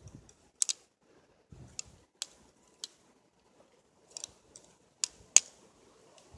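A Lego-brick butterfly knife being flipped: its plastic handles clack together in sharp, irregular clicks, with the loudest pair a little after five seconds in.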